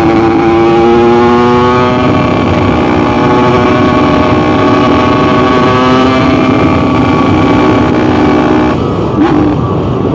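Yamaha RX-King two-stroke single-cylinder motorcycle running under way, its exhaust tuned for a throaty 'ngorok' (snoring) note, heard through a phone microphone. The engine note holds steady with small changes in pitch, then drops away near the end as the throttle is eased.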